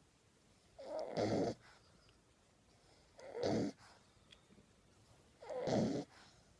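French Bulldog puppy snoring in his sleep: three snores about two and a half seconds apart, each lasting under a second.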